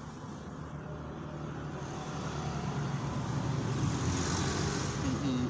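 A motor vehicle's engine running steadily, growing louder over the second half, as if passing close by.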